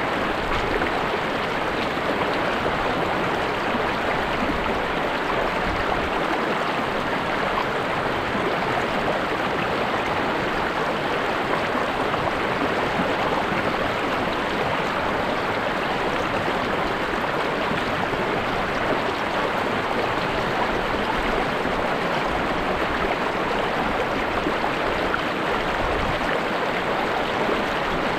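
River water flowing and splashing with a steady, even rush.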